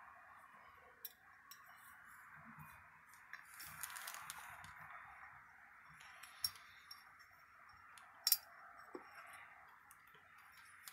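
Faint, scattered clicks and clinks of small metal valve-spring parts being handled and set onto a Harley-Davidson Evolution aluminium cylinder head, over a steady hiss. The sharpest clicks come about six and a half and eight seconds in.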